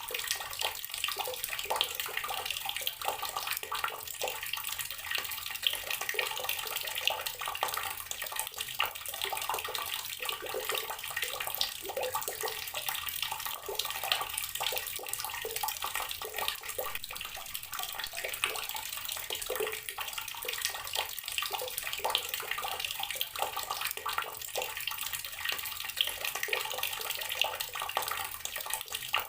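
Water running steadily from a tap and splashing continuously, with a dense patter of small droplet splashes.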